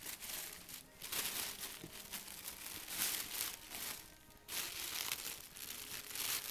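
Tissue paper rustling and crinkling as it is pulled out of a cardboard gift box, in irregular bursts with a short lull about four seconds in.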